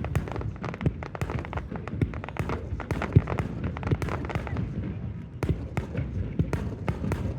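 Fireworks going off in a rapid, irregular string of sharp bangs and crackles.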